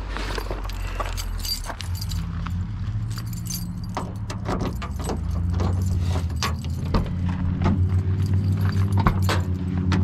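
Keys jangling and clinking at a pickup truck as its door is unlocked and opened. A steady low hum comes in about two seconds in and grows louder.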